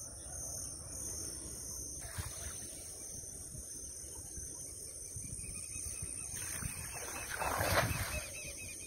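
Cast net landing on the lagoon water with a brief splash about seven and a half seconds in. Steady high insect chirring runs under it.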